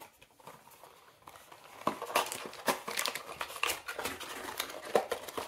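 Small plastic toy packaging crinkling as it is handled, quiet at first, then a quick run of sharp crinkles and crackles from about two seconds in.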